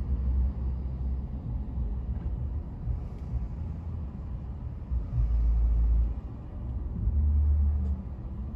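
Low rumble of a vehicle's engine and road noise heard from inside the cab, swelling louder a couple of times.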